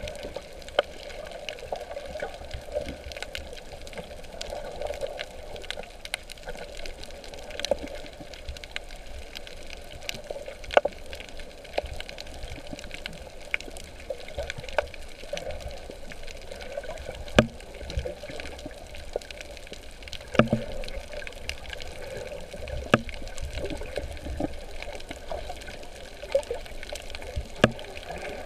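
Water sloshing and trickling around a snorkeler's camera, with irregular sharp clicks, a few of them loud, spaced a couple of seconds apart.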